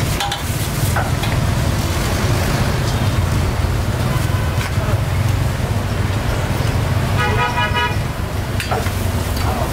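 Steady road-traffic rumble with a vehicle horn sounding once, for under a second, about seven seconds in.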